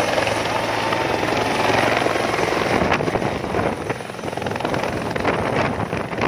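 Helicopter coming in to land close by, its rotor and turbine running loud and steady. From about three seconds in, the rotor downwash gusts across the microphone, making the sound uneven and buffeting.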